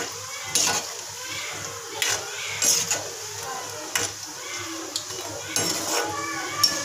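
Pakoras sizzling as they deep-fry in hot oil in an iron kadhai, while a slotted metal spoon stirring them clinks and scrapes against the pan repeatedly.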